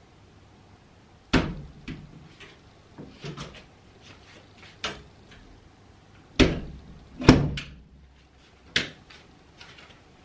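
A series of separate household knocks and clunks, like cupboard doors and objects being handled and set down. The loudest thuds come about a second in and then three in a row between six and nine seconds in, with softer taps between them.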